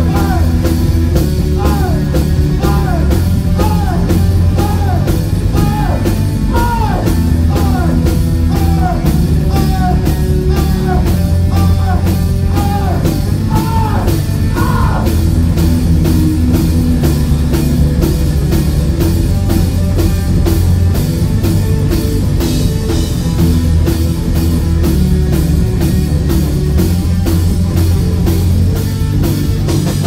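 Live rock band playing loudly: electric guitars, bass and a drum kit, with sung vocals. A line of short notes bending downward repeats about once a second through the first half.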